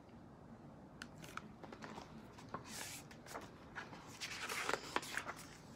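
Faint paper rustles and a few soft clicks as a picture book's page is turned and the book is handled, with swishes about three seconds in and again a little later.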